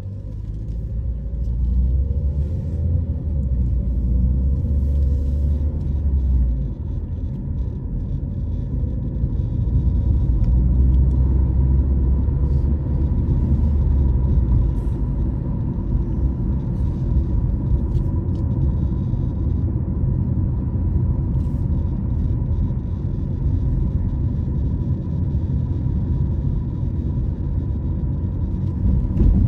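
Car driving, a steady low rumble of engine and road noise that swells and eases at times.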